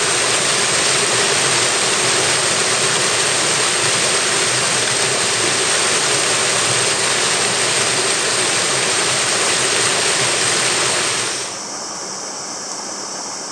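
Mountain stream rushing over boulders and a small cascade, a steady, loud rush of water. About eleven and a half seconds in it drops suddenly to a quieter, softer rush of water.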